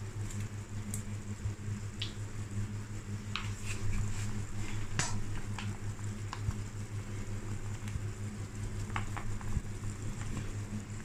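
Slotted metal spatula stirring macaroni and vegetables in an aluminium pot, with scattered light clicks and scrapes against the pot, over a steady low hum.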